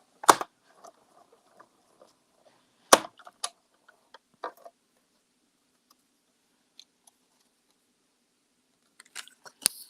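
Hand-cranked die-cutting machine with a metal frame die sandwiched between cutting plates: a few sharp clacks and knocks, a loud one just after the start and a pair around three seconds in, then a quiet spell and a quick cluster of clicks near the end.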